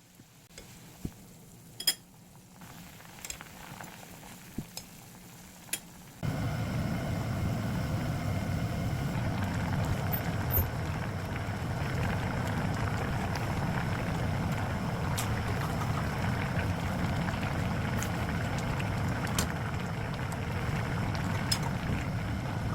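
A few light clinks of kitchenware, then about six seconds in a steady rushing noise from the stove starts suddenly and holds, with occasional clinks over it.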